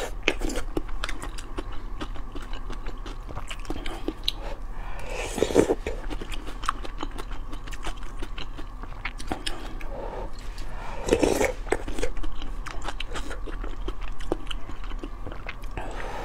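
Close-miked mouth sounds of someone eating tofu and dried-shrimp soup from a spoon: wet chewing and small mouth clicks, with a couple of louder moments about five and eleven seconds in.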